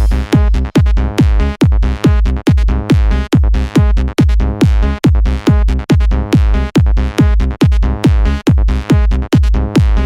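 Electronic dance music from a DJ mix: a heavy kick drum on every beat, about two and a half a second, each kick dropping in pitch, under a steady synth chord.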